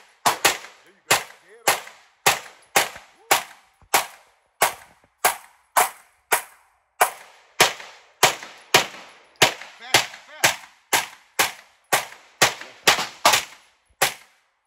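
CZ Scorpion EVO 3 9mm pistol fired semi-automatically in a fast, steady string of about two shots a second, some two dozen shots, each followed by a short echo.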